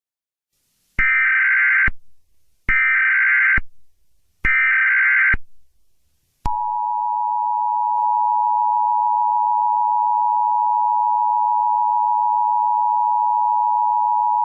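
Emergency Alert System alert tones: three short SAME header data bursts, each just under a second long with short gaps between, then, about six and a half seconds in, the steady two-tone EAS attention signal. This is the standard sequence that opens an emergency alert broadcast.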